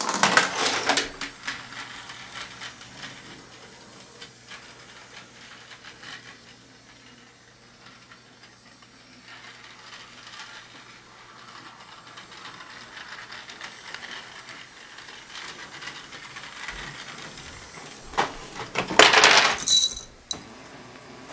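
Marble-driven Rube Goldberg machine running: a loud clatter at the start, light rolling, clicking and knocking through most of the run, then another loud clatter about nineteen seconds in.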